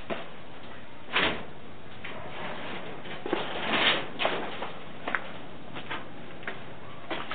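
Irregular short knocks and scrapes over a steady hiss. The loudest is a brief scrape about a second in, and a longer scuff comes near the middle.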